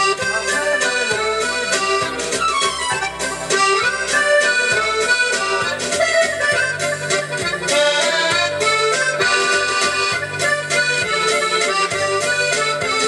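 Yamaha PSR-S670 arranger keyboard playing a waltz medley, a melody in an accordion-like voice over a bass accompaniment.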